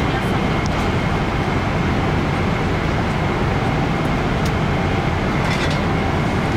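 Steady cabin noise of a Boeing 777-300ER at cruise altitude: an even rush of airflow and engine noise that does not change.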